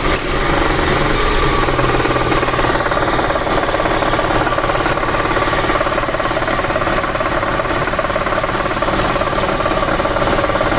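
Audi A8 engine running steadily with a fast metallic rattle. The rattle comes from worn bushings on the swirl flaps in the intake manifold, not from a knock inside the engine.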